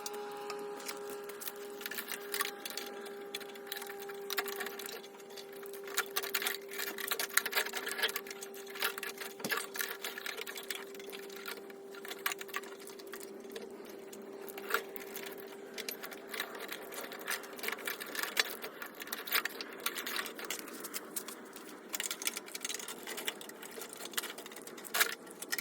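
A small electric motor runs with a steady whine under irregular scratchy clicks and ticks. The whine fades out about three quarters of the way through, while the clicking carries on.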